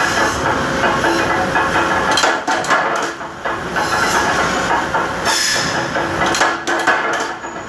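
Mechanical punch press running as metal channel bar is cut, with several sharp strikes over continuous loud machine noise.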